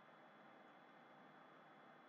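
Near silence: faint steady hiss of room tone, with a thin high-pitched whine.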